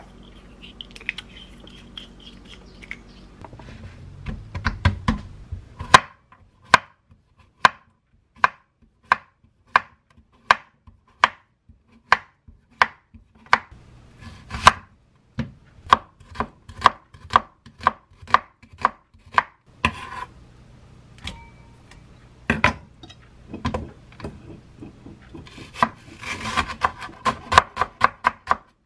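Chef's knife cutting an onion on a wooden cutting board, each stroke a sharp knock against the board, a little more than once a second. Near the end it turns to rapid chopping, about four or five knocks a second, as green onion is finely sliced.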